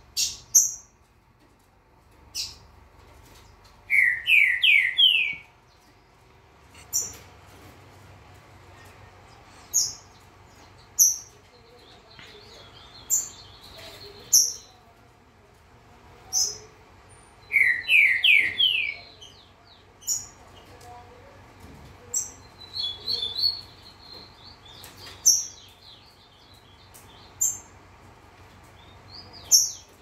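Several caged songbirds calling: sharp, high single chirps every second or two, twice a short phrase of four quick rising whistled notes, and in between bouts of soft buzzy twittering.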